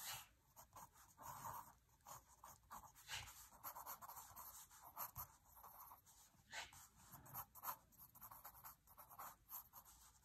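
Mechanical pencil drawing on paper: faint, irregular short scratching strokes of graphite as lines are sketched.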